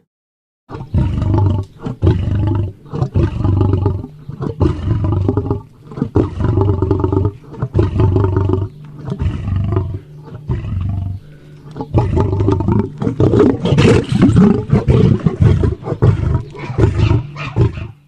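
A large wild animal roaring over and over: a long run of deep, loud calls about a second each, separated by short breaks.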